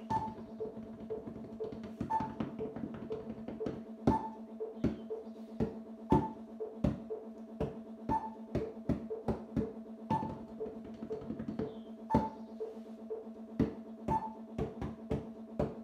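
Timpani mallets striking two cushions used as practice drums, playing a timpani etude in uneven rhythms. Behind them a metronome clicks four to a bar at about two beats a second, its accented downbeat every two seconds, over a steady sustained tone.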